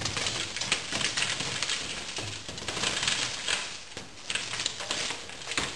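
Shattered tempered glass in a door pane being knocked out with a bar. The fragments crumble and fall in a dense, rapid clatter of small clinks and crackles.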